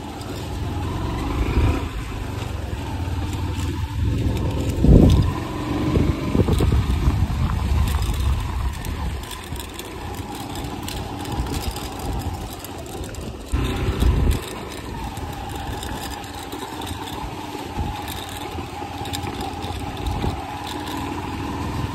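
Motorcycle engine running while riding a rough off-road forest trail, with louder bumps about five seconds and fourteen seconds in.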